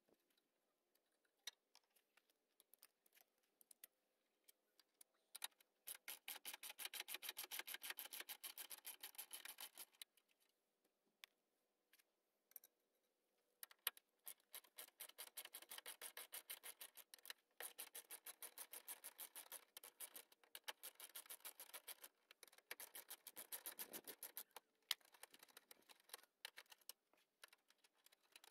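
Faint, rapid clicking of a hand ratchet wrench backing out bolts, in runs of several seconds with short pauses between.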